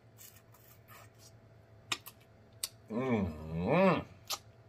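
Wet lip-smacking and sucking clicks from eating braised oxtail off the bone by mouth. About three seconds in comes a hummed 'mmm' of enjoyment that rises and falls, the loudest sound.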